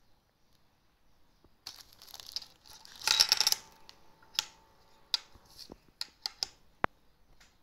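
A clear plastic zip-lock bag crinkling as it is opened and handled, loudest about three seconds in, followed by a string of light clicks and taps as plastic antigen test cassettes are set down on a table, with one sharper knock near the end.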